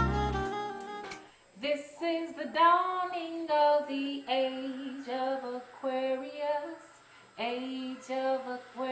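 A woman singing alone without accompaniment, holding slow, sliding notes with short breaks, starting about a second and a half in. Before that, the end of a saxophone jazz tune fades out.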